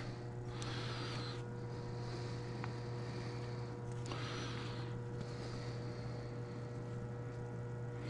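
Steady low electrical hum, with a few soft rustling handling noises as the thrust washers and a tube of assembly lube are handled.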